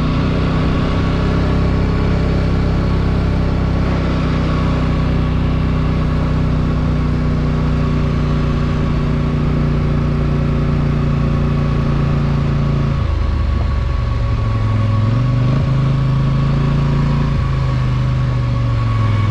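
ATV engine running at a steady cruising speed. About two-thirds of the way through it drops in pitch, then rises and falls slightly a couple of times as the throttle changes.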